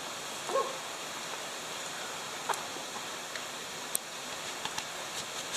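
A steady, even hiss of outdoor ambience, with a few faint short clicks and taps scattered through it, the sharpest about four seconds in.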